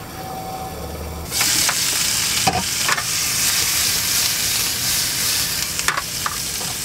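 Asparagus sizzling and frying in a pan, starting abruptly a little over a second in, with a few knocks of a utensil as it is stirred.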